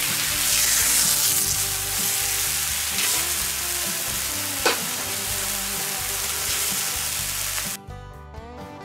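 Thin slices of beef searing on a hot steel fire plate, a steady sizzle with one sharp click about halfway through. Near the end the sizzle cuts off and guitar music takes over.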